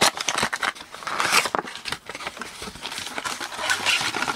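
A cardboard trading-card box being unwrapped and opened by hand: the plastic wrapping crinkles and tears, and the cardboard flaps scrape and snap, making many quick clicks and crackles.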